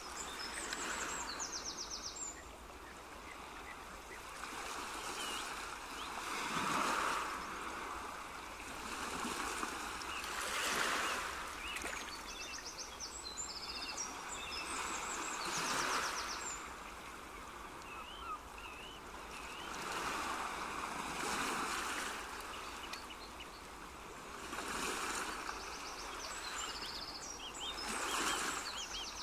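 Rushing water that swells and fades every four or five seconds like surf, with faint high chirps over it.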